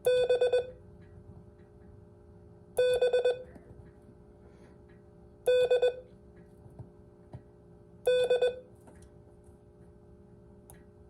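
Morse code sidetone keyed on a paddle: four letters sent as groups of short and long beeps at one steady pitch, each letter under a second long and spaced about two and a half seconds apart.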